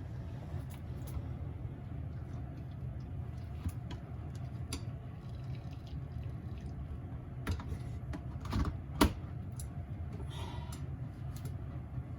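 Kitchen work over a steady low rumble: scattered light clicks and knocks of utensils, the sharpest knock about nine seconds in, with a brief swish of liquid or cloth shortly after.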